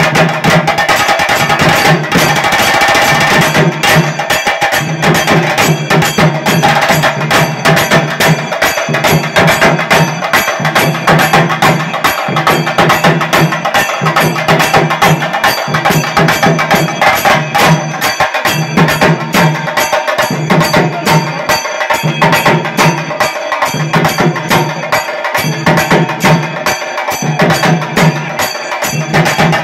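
Chenda drum ensemble playing a loud, fast, unbroken rhythm of dense stick strokes on the drumheads.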